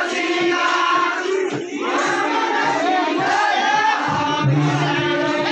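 Music with a steady held drone note under many voices singing and shouting together from a large dancing crowd.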